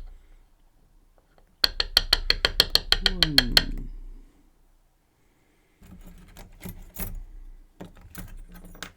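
Small metal lock parts clicking during disassembly of a Mul-T-Lock Garrison lock. About a second and a half in comes a fast, even run of sharp clicks, about eight a second, lasting some two seconds. Softer scattered clicks and knocks follow later.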